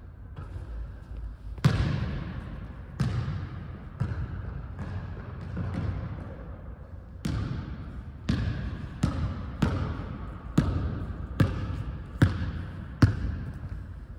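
A basketball bouncing on a hardwood gym floor, each bounce echoing in the big hall. The first few bounces are loose and spaced out, then in the second half it settles into a steady dribble about every three-quarters of a second.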